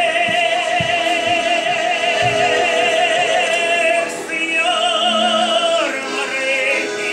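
Russian folk singing: a high voice holds long drawn-out notes with vibrato, the first for about four seconds, then a shorter one about five seconds in, and another starts near the end.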